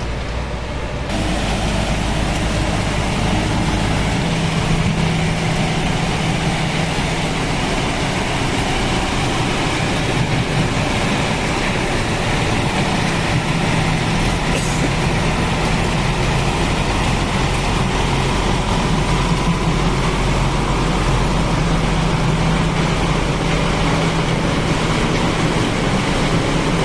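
Kirloskar diesel engine of a 2007 JCB 3DX backhoe loader running steadily at working throttle, growing louder about a second in.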